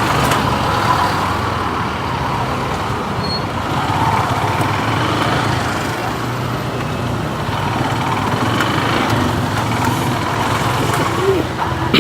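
Motorcycle engine running steadily on the move, mixed with the noise of surrounding road traffic.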